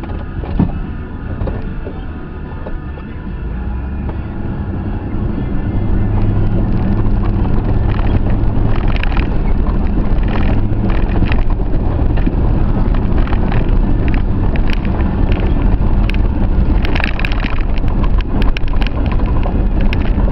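Four-wheel-drive vehicle's engine pulling up a rough trail climb in high range, growing louder about four to six seconds in. Through the second half, many short clicks and knocks from the tyres and chassis working over the rocky trail.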